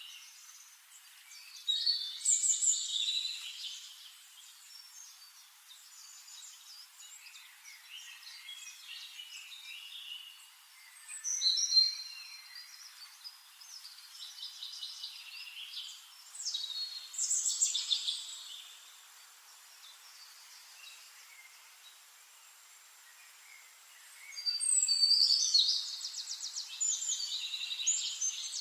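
Songbirds singing in the forest: quick chirps and trills come in four louder bursts, with quieter calls between them.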